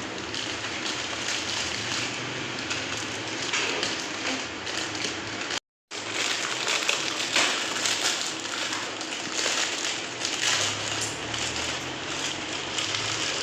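Food sizzling and crackling in hot oil in a frying pan, a steady crackly hiss, broken once by a sudden cut to silence a little before halfway.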